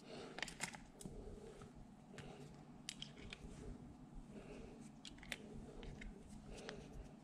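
Faint, irregular metallic clicks and handling noise as .380R blank cartridges are pushed one by one into the swung-out cylinder of a 2.5-inch chrome Zoraki blank revolver.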